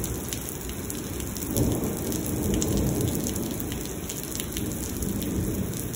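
Heavy rain pouring onto wet pavement: a steady hiss with many fine drop taps, under a low rumble of thunder that swells about a second and a half in.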